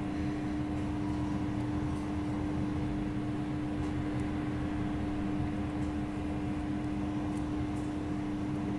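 A steady background hum with one constant tone, like a fan or appliance running, with a few faint light clicks.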